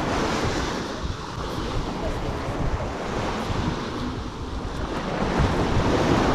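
Waves washing onto the shore in a rough sea, with wind buffeting the microphone.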